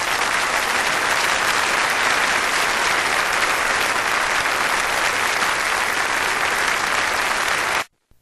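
Audience applauding steadily, cutting off abruptly near the end.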